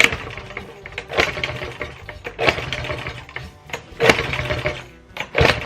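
Two-stroke Maytag washing-machine engine being cranked over for a start, in repeated bursts about once a second, not yet running steadily.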